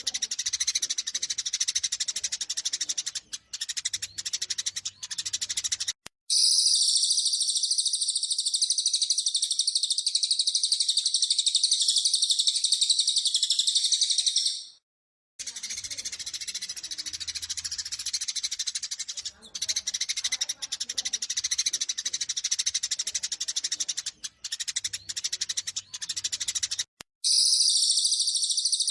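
Bird-training recording of Eurasian tree sparrows giving rapid, harsh fighting chatter, twice cut over to an unbroken high-pitched trill from a second bird recording, the cililin of the combination: the chatter runs for the first six seconds and again through the middle, and the trill runs for about eight seconds and again near the end.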